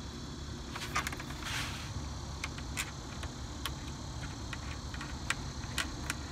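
Scattered small clicks and light rattles of bolts and plastic clips being handled and fitted by hand on a car's radiator fan shroud, over a steady low background rumble.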